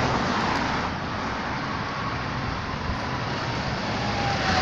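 Road traffic passing close by: a steady rush of tyre and engine noise, with a faint whine that slowly falls in pitch over the second half.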